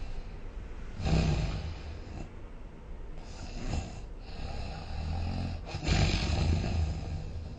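Person snoring in sleep: a loud snore about a second in and another about six seconds in, with softer breaths between.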